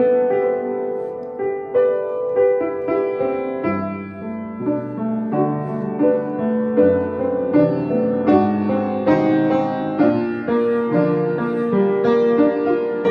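Solo piano playing an aria: a melody of single notes over chords, each note struck and left to ring into the next.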